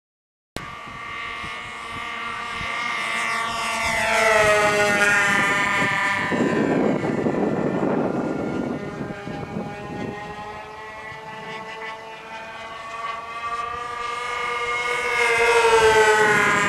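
Twin-engine radio-control model airplane flying past twice, its engines' whine swelling and dropping in pitch as it goes by. A rushing noise comes between the passes.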